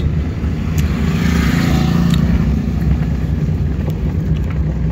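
Maruti Suzuki Alto running and moving, its engine and road noise heard from inside the cabin as a steady low rumble.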